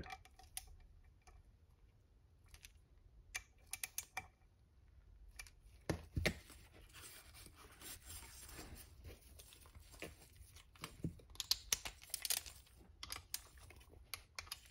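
Click-type torque wrench working the bolts of a supercharger's aluminium housing: faint scattered ratchet clicks and small bunches of clicks as bolts are tightened to 9 Nm, with soft handling noise between them.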